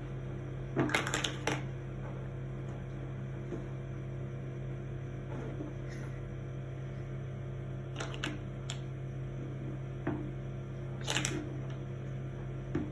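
Small hard clicks and taps, likely plastic sand-play moulds and tools handled and knocked together, in a few short clusters (about a second in, around eight seconds, around eleven seconds and near the end), over a steady low electrical hum.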